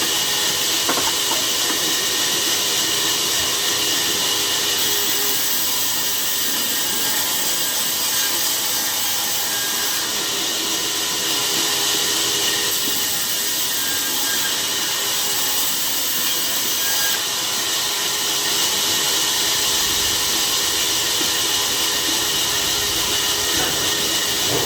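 A sawmill saw cutting through a log: a steady hissing saw noise that goes on without a break.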